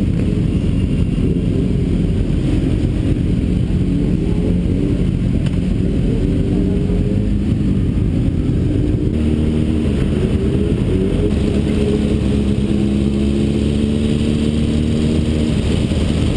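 Sport motorcycle engine running under way, its pitch rising and falling several times with throttle and gear changes, with other motorcycles riding close by. The sound changes abruptly about nine seconds in.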